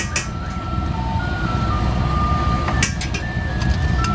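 Steel spatula clanking and scraping on a flat iron griddle, sharply at the start and in a quick cluster about three seconds in, over a steady low rumble of street traffic. A thin electronic tune of held notes, stepping up and down in pitch, plays throughout.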